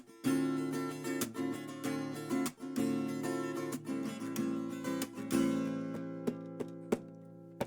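Background music: strummed acoustic guitar chords playing an instrumental passage, fading down near the end.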